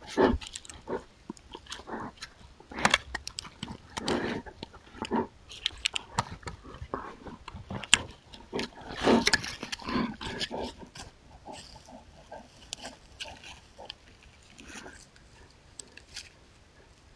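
American black bear handling and biting a trail camera at close range: irregular clicks, knocks and scraping of claws and teeth on the camera housing, mixed with the bear's short breaths. The noises are dense for the first ten seconds or so, then thin out as the bear leaves the camera.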